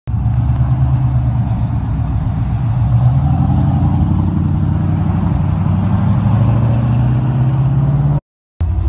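Pickup truck engine running with a steady, deep exhaust note. Its pitch rises a little from about three seconds in, then holds. The sound drops out abruptly for a moment near the end.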